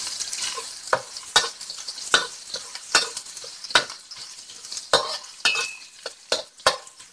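Chopped garlic sizzling in hot sesame oil in a wok, frying toward golden brown, while a spatula scrapes and knocks against the pan about once a second as it is stirred. The sizzle thins out toward the end.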